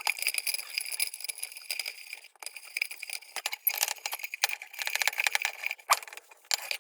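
Rapid scratching and metallic clinking on the thin tin of an antique lantern as it is worked over and cleaned, stopping abruptly near the end.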